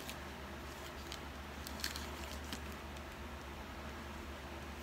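Quiet room tone: a steady low hum under a faint hiss, with a few soft clicks.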